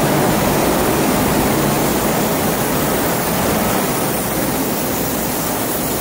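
Steady, even roar of factory machinery noise in a metal fabrication shop.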